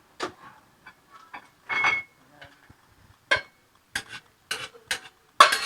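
A serving utensil clinking and scraping against a cooking pot and serving dish as the soup is transferred: a string of about eight sharp clinks, some with a short ring, the loudest near the end.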